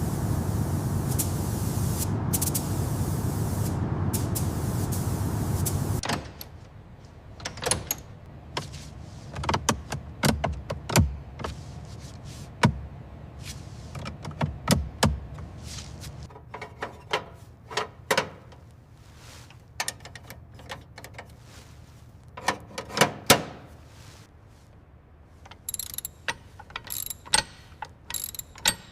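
A steady loud rushing hiss that cuts off suddenly about six seconds in, followed by scattered metallic clicks, clanks and knocks of hand work on a car in a workshop.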